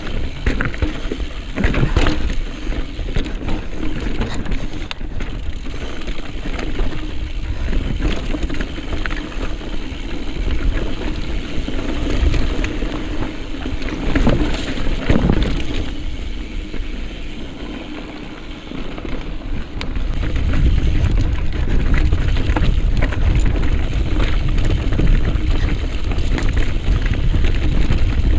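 Mountain bike clattering and rattling over rough, rocky trail, with wind buffeting the microphone. The wind rumble gets heavier about two-thirds of the way through.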